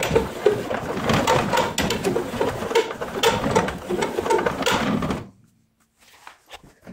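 Honda snowblower's discharge chute being turned by its crank rod: the metal worm gear grinds and rattles round the chute's toothed ring for about five seconds, then stops abruptly, leaving a few faint clicks.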